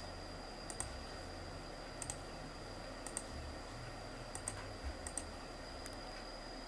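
Several quiet computer mouse clicks, mostly in close pairs about a second apart, over a faint steady high whine and hiss.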